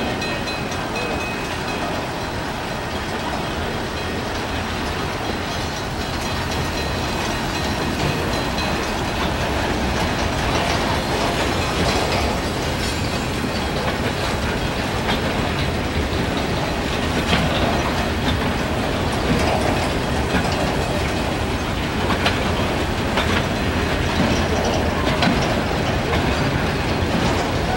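Freight train of boxcars rolling slowly past, the wheels clacking over the rail joints, with a few sharper clanks in the second half.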